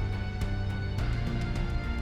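Background music with a steady beat over a strong bass line.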